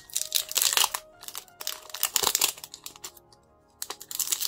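Foil wrapper of a Pokémon card booster pack crinkling and tearing as it is pulled open by hand, in several bursts with a short pause near the end, over quiet background music.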